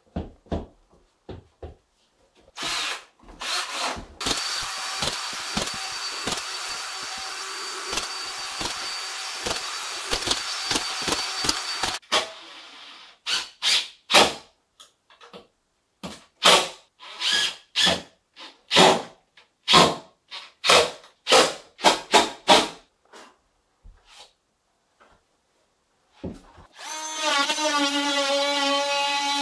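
Cordless drill-driver running in many short bursts, with one steady run of several seconds early on, as screws are driven to fix drywall boards. Near the end another power tool starts up with a steady, pitched whine.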